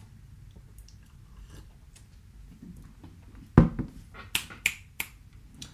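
A quiet pause, then four short sharp clicks over about a second and a half, the first with a low thump.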